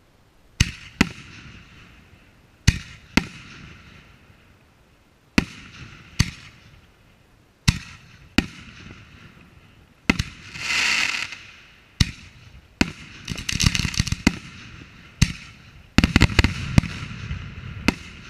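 Aerial firework shells bursting: a dozen or so sharp bangs, roughly one every second or so, each trailing off in an echo. About halfway through, a hissing rush lasts over a second, and in the later part the bangs come in rapid crackling clusters.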